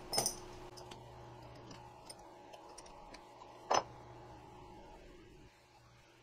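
Small clicks of a cutting bit being handled and swapped in an X-Carve CNC router's spindle collet, with one sharp click a little past the middle. A low steady hum underneath comes from the machine, left powered so its stepper motors hold position.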